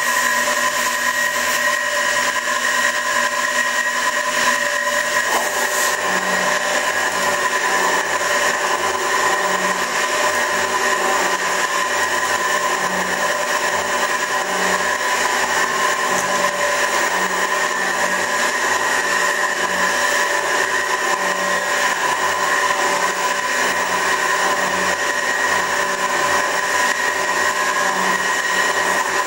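Värnamo 24-inch metal shaper running, its motor and drive giving a steady whine while the ram strokes back and forth and the tool cuts the metal face. A low beat comes back about every second and a half to two seconds.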